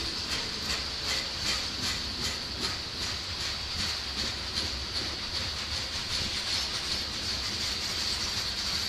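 Covered hopper cars of a freight train rolling past, wheels clicking over rail joints in a steady clickety-clack over a constant high hiss. The clicks are most distinct in the first few seconds.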